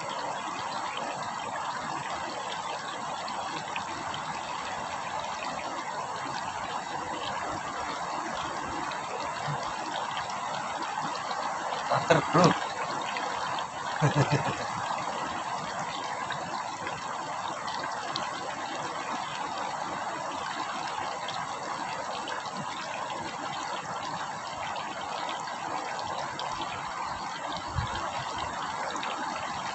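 Steady rushing of river water. A man's voice cuts in briefly twice, about twelve and fourteen seconds in.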